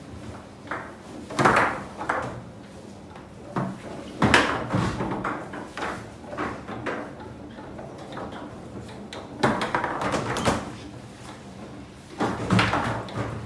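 Foosball table in play: irregular sharp clacks and bangs of the ball being struck and the rods knocking, coming in small clusters, the loudest a little over four seconds in.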